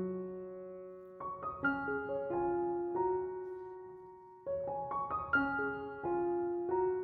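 Background piano music: short phrases of struck notes that ring on and fade, one phrase starting about a second in and another just past halfway.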